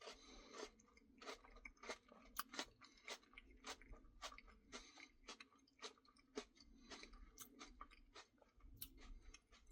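Faint, close-up chewing of crunchy food: irregular small crunches and mouth clicks, several a second.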